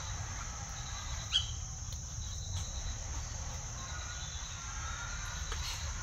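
Steady high-pitched drone of insects (crickets) in garden vegetation, over a low rumble. There is a single sharp click about a second and a half in, and faint chirps about two-thirds of the way through.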